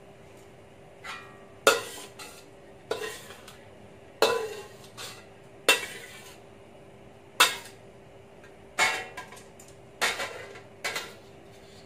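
Metal spatula scraping and knocking against a stainless steel wok while stirring and scooping chopped herbs: about nine sharp strokes with a brief metallic ring, a second or so apart, over a faint steady hum.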